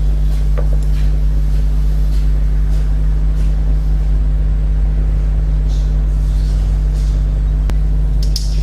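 A loud, steady low hum at an even level, with a few faint light clicks.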